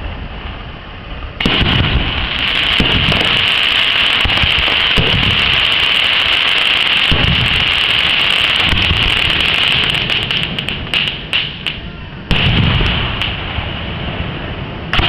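Aerial firework shells bursting overhead: deep booms, then a long stretch of dense, rapid crackling from the shells' stars that thins out after about ten seconds. Fresh bursts come again near the end.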